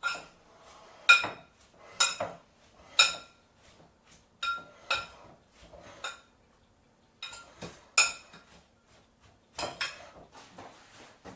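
Metal cutlery clinking against dishes: about a dozen sharp, ringing strikes, roughly one a second, some in quick pairs.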